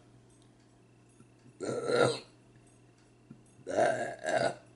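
A woman burping loudly: one burp about one and a half seconds in, then two quick burps back to back near the end.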